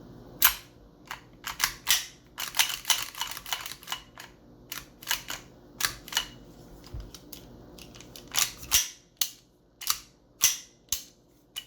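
Slide and frame of a G&G GTP9 gas blowback airsoft pistol being fitted back together and worked by hand: a run of sharp, irregular clicks and short scrapes, with a quick cluster of clicks about two to four seconds in.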